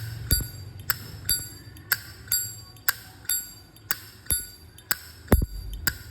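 Nickel-plated Zippo lighter's lid flicked open and snapped shut over and over, about two sharp clicks a second, each with a short bright metallic ring. This is the clear Zippo 'voice' the seller praises as a good sound. Two heavier low thumps come near the end.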